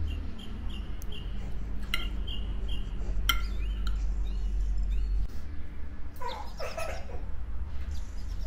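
Metal fork and spoon clinking and scraping against a ceramic plate while eating, with a couple of sharp clinks, over a steady low hum and short high chirping calls.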